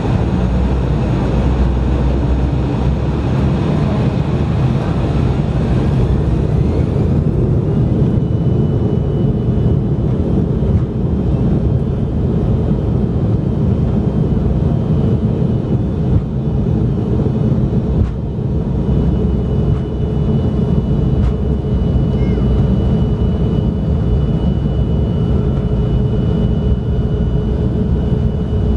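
Cabin noise of an Embraer E175 taxiing with its turbofan engines near idle: a steady low rumble, with a thin whine that rises in pitch about six seconds in and then holds steady.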